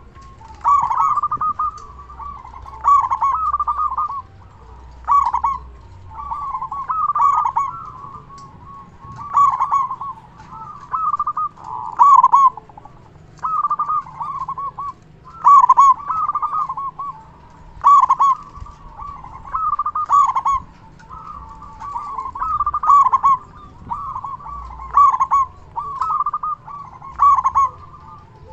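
Zebra dove (perkutut) cooing in a loud, deep-voiced song, repeating its short rolling coo phrase about every one to two seconds.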